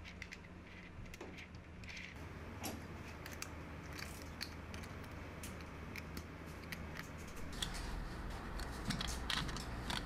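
Small magnetic metal balls clicking together in quick, irregular ticks as they are snapped and pressed into place on a ball structure. The clicks come thicker near the end, over a steady low hum.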